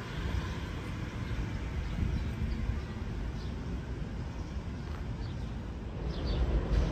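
Outdoor ambience: a steady low rumble, with a few short bird chirps near the end.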